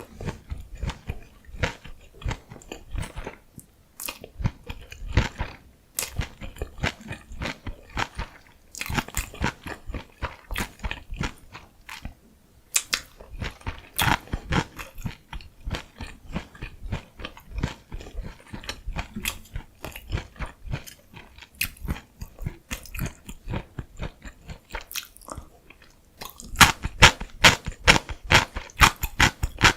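Gimbap (Korean seaweed rice roll) chewed close to the microphone: a steady run of crunchy chewing clicks. It pauses briefly near the end, then comes back louder and faster.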